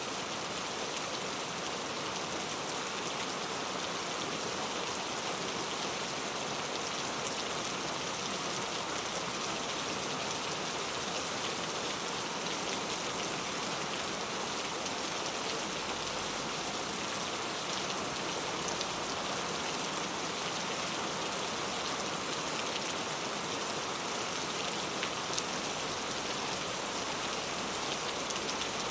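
Heavy rain falling steadily, a constant hiss of drops with faint scattered patters.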